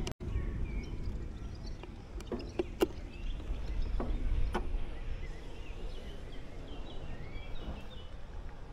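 Outdoor ambience with a steady low rumble, a handful of sharp knocks about two to four and a half seconds in, and faint high chirps near the end.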